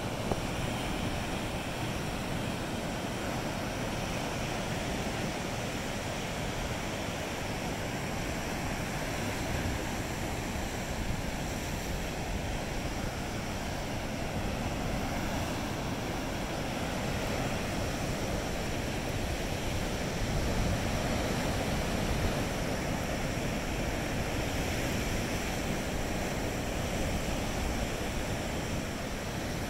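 Ocean surf breaking and washing over a rock shelf, a steady rush of white water that swells slightly about two-thirds of the way through.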